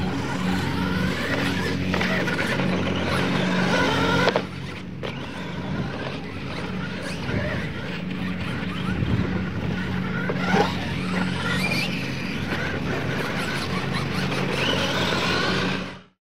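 Radio-controlled monster trucks racing on a dirt track, their motors whining and rising in pitch again and again as they accelerate, over a steady low hum. Two sharp clicks stand out, and the sound cuts off suddenly near the end.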